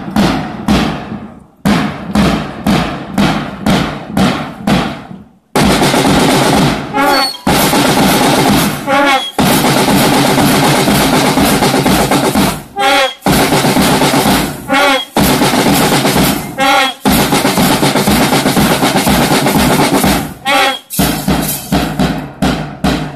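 School marching band of bass drums, side drums and brass bugles. Separate drum beats about two a second, then from about five seconds in a continuous drum roll broken by short pauses, with brief bugle phrases sounding over it.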